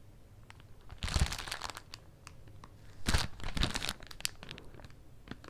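Plastic packaging crinkling as it is handled, in two bursts, about a second in and again about three seconds in, with small rustles and clicks between.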